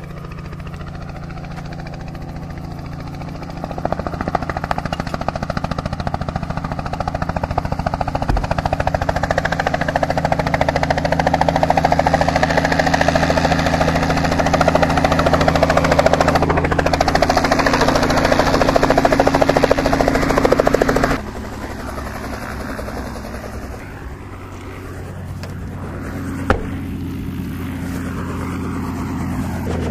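Small helicopter coming in low and landing, its rotor and engine running loud and steady, growing louder from about four seconds in. The sound drops suddenly about two-thirds of the way through, and the helicopter runs more quietly once it is on the ground.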